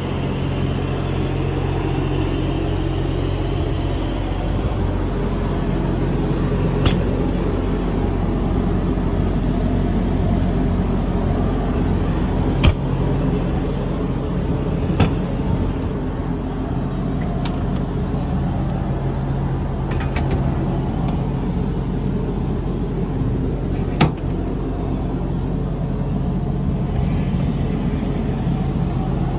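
Steady low mechanical hum with a few sharp clicks scattered through it.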